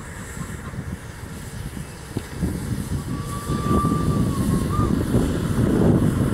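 Low rumble of a car passing on the road beside a slowly rolling narrow-gauge steam locomotive, swelling from about halfway through. A thin steady squeal sounds for about two seconds near the middle.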